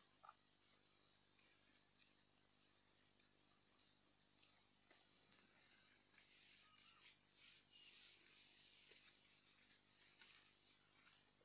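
Faint, steady high-pitched insect chorus, with one insect's sharper, louder steady tone standing out from about two to three and a half seconds in.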